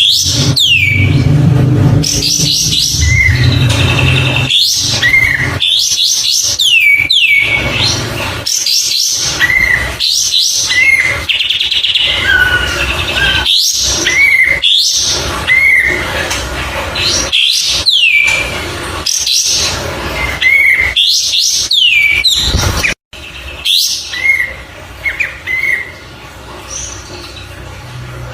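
Kapas tembak songbird calling over and over: bright chirps, each a quick high whistle sweeping downward followed by short clipped notes, repeated every second or two. A low rumble sits under the first few seconds.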